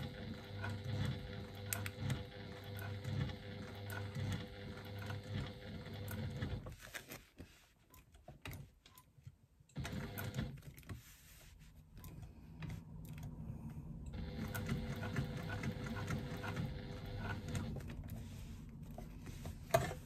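Electric sewing machine stitching through faux leather, running at an even speed for about six seconds, stopping for about three, then starting again and running steadily through the second half. A sharp click near the end.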